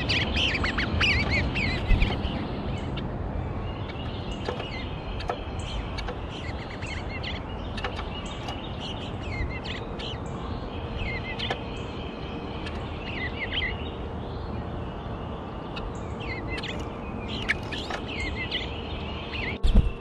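Small songbirds chirping and twittering in many short, high calls over a steady outdoor rushing noise, with a brief low thump about two seconds in.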